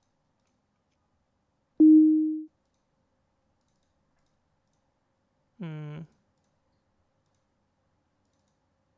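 A single short note from the Absynth software synthesizer: a click, then one plain steady tone that fades after about half a second, roughly two seconds in. A shorter, quieter pitched sound with a slight rise follows near six seconds, and the rest is digital silence.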